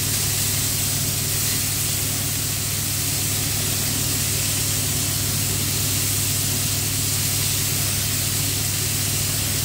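Pork loin slices and garlic sizzling steadily in olive oil in two frying pans, with a steady low hum underneath.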